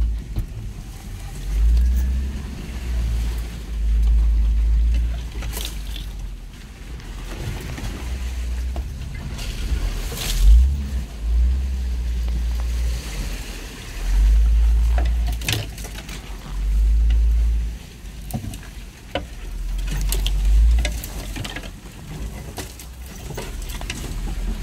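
Inside the cabin of a 4WD crawling over a rough bush track: uneven low rumbling and bumping that swells every few seconds, with sharp knocks and rattles scattered through it.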